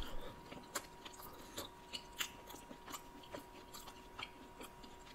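Close-up chewing of a mouthful of deep-dish pizza: faint, irregular mouth clicks as the crust and toppings are chewed.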